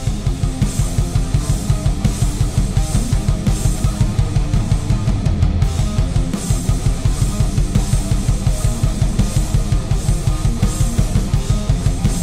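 Background rock music with a fast, steady drum beat and guitar.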